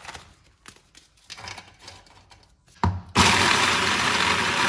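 A few light knocks as chocolate biscuits go into a plastic chopper bowl and the motor unit is fitted. Then, about three seconds in, the hand blender's chopper starts with a thump and runs loud and steady, grinding the biscuits into crumbs.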